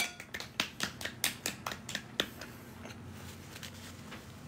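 A quick run of light, sharp clicks or taps, about ten in just over two seconds, then they stop.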